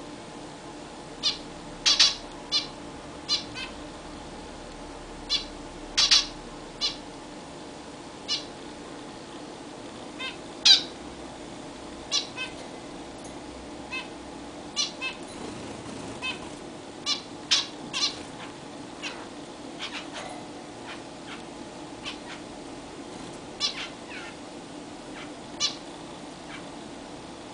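Zebra finches calling: short, nasal, honking beeps, about thirty of them, coming singly, in pairs or in quick clusters at irregular intervals, over a faint steady hum.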